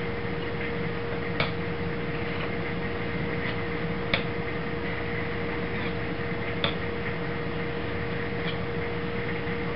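A few light, sharp clicks as the knife and the sharpening stone are handled, three of them clear and spaced a couple of seconds apart, over a steady hum and hiss.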